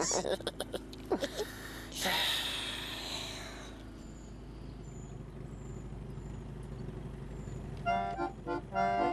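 A few clicks and knocks, then a hissing rush about two seconds in lasting a second or so. After a quieter stretch, an accordion tune starts near the end.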